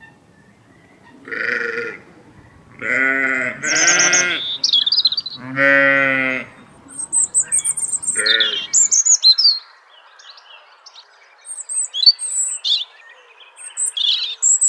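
Sheep bleating, about five separate bleats in the first nine seconds. Birds chirp with quick high notes from midway on.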